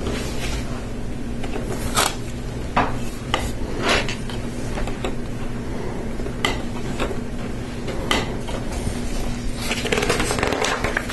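Hard plastic Lego Technic pieces clicking and knocking as they are handled and pressed together, a handful of separate clicks spread out, over a steady low hum.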